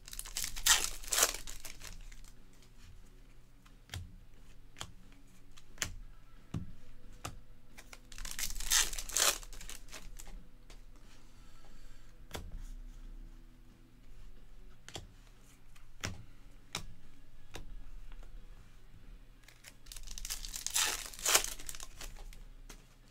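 Trading-card pack wrappers being torn open and crinkled, three times: near the start, about eight seconds in, and near the end. In between come short light clicks of cards being flipped through in the hands.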